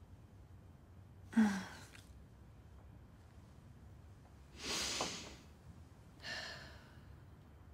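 A woman's breathing: a short voiced gasp about a second in, a longer airy sigh near the middle, the loudest sound here, and a softer breath out near the end.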